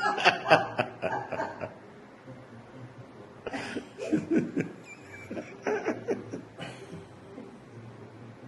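A person laughing in several short bursts, with pauses between them.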